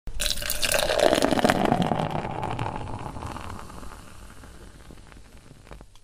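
Beer being poured, a splashing pour full of small crackles whose pitch rises as the vessel fills. It starts suddenly, is loudest in the first two seconds, then fades away and cuts off at the end.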